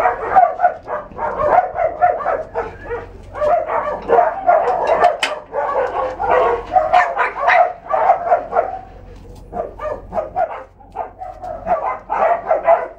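Dogs barking, many short barks in quick succession, easing off briefly about three-quarters of the way through before starting up again.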